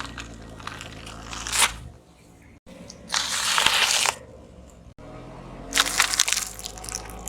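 A car tyre rolling over and crushing objects, with crunching and cracking, over the low hum of the car's engine. There are three short crushes in separate takes; the loudest is a long hiss-like burst about three seconds in.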